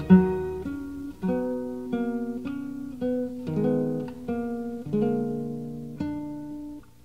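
Soundtrack music: a guitar, most likely acoustic, picking a slow melody, each note struck and left to ring out, fading to a brief lull near the end.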